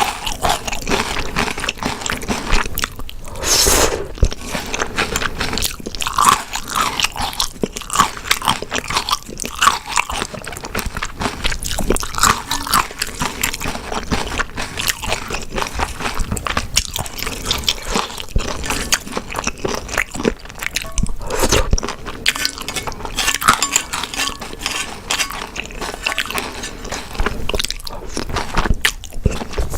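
A person chewing and biting food close to the microphone: a steady run of quick, irregular wet mouth clicks and smacks, the eating sounds of a mukbang meal of grilled beef intestines and spicy stir-fried noodles.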